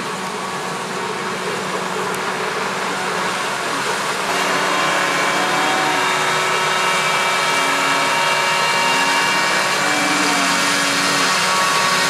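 Claas Jaguar 970 forage harvester, with its V12 diesel, running under load as it chops maize: a loud, steady drone with a high whine from the chopping and blowing, its pitch rising and falling slightly several times. It gets louder about four seconds in.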